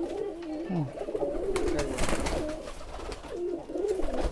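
Several domestic girebaz pigeons cooing together in a loft, low wavering coos overlapping one another, with scattered light clicks and rustles.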